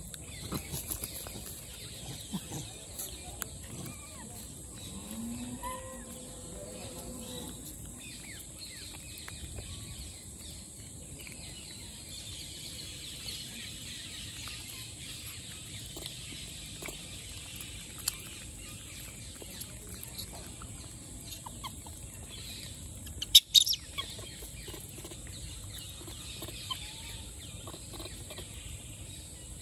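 Outdoor ambience of a troop of rhesus macaques foraging on sandy ground: scattered rustles and small clicks, with a few brief animal calls early on over a steady high hiss. A loud sharp double crack stands out late on.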